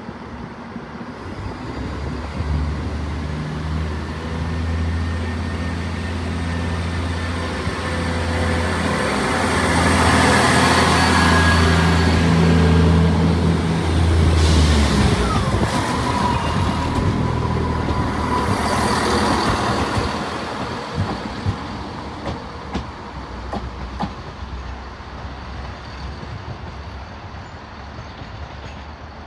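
Class 170 Turbostar diesel multiple unit pulling out of the platform, its engines running under power with a steady drone that stops about halfway through. A high squeal follows as the train moves off, then a few sharp clicks of wheels over pointwork, with another diesel unit coming in near the end.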